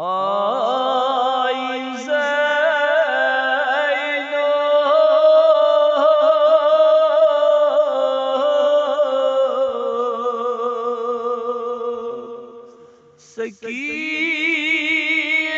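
A man chanting a nauha, a Shia lament, solo in long, drawn-out wavering notes. Near the end the voice drops away briefly for a breath, then takes up the next line.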